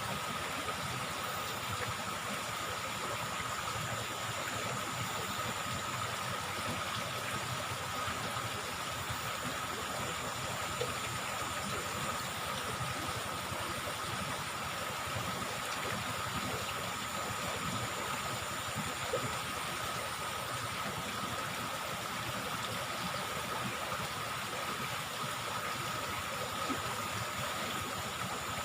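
Steady rush of flowing river water, with a thin, steady high tone running underneath it.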